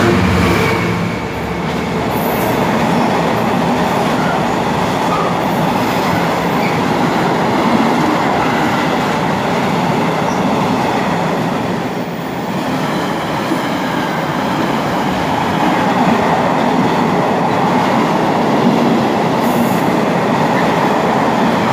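A freight train passes at speed. The Class 66 diesel locomotive's two-stroke V12 is heard going by in the first second, then a long rake of mostly empty container flat wagons rumbles past steadily, wheels clattering on the rails.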